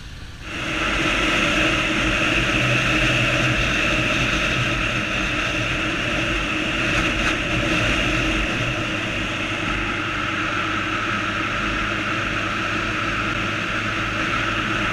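Sport motorcycle engine running at a steady cruise with wind noise, heard from an on-board camera while riding; it comes in loudly about half a second in and holds steady.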